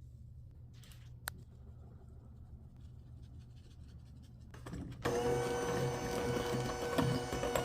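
A single click about a second in, then an electric hand mixer switches on about five seconds in and runs steadily with a steady motor whine.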